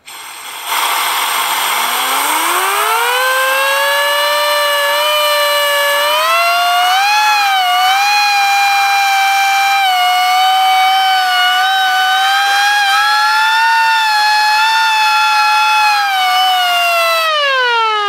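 3D-printed air raid siren spun by a compressed-air turbine at 100 PSI. With a rush of air, its wail climbs quickly over a couple of seconds to a loud, steady high note that wavers a little. Near the end the air is shut off and the wail begins to fall in pitch as the rotor winds down.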